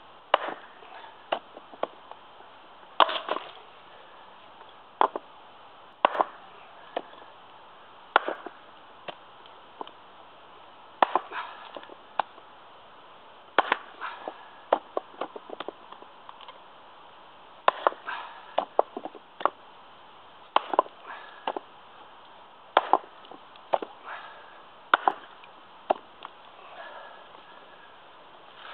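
Prandi Yankee small axe, a 600 g head, chopping into a small piece of wood held upright on a stump chopping block. The strikes are sharp, separate chops at an uneven pace, about one a second, now and then in quick runs of three or four.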